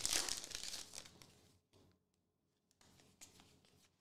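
Foil wrapper of a trading-card pack crinkling and tearing as it is opened, dying away after about a second, then near silence with one faint click.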